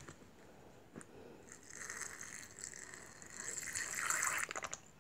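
Water poured from a small bottle into a container, a faint gushing pour that starts about a second and a half in and stops near the end, with a light click about a second in.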